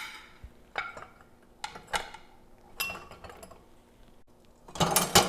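Clean glass and dishes clinking as they are handled and set down: a few separate ringing clinks, then a louder clatter near the end.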